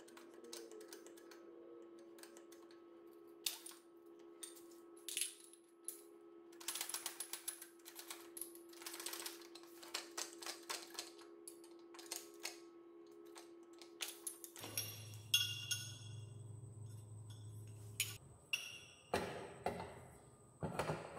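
Sharp metallic clicks and clanks from a hand-operated hydraulic pipe bender being worked and a metal pipe being set and shifted in its dies, with quick runs of clicking in the middle. Later come metal pipes knocking against a welded steel frame, a few of them louder near the end.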